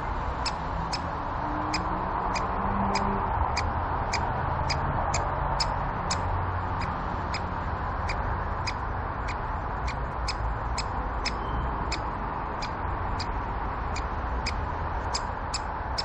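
Sharp, evenly spaced ticks, about two a second, over a steady background hiss.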